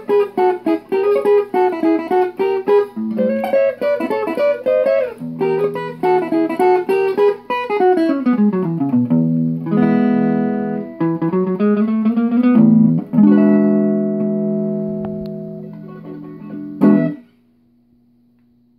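Solo archtop guitar playing the close of a swing-era jazz guitar piece: fast picked chord runs and a quick falling run, then sustained chords and a long final chord that rings and fades. A last sharp chord stab near the end is damped off suddenly, leaving a faint steady hum.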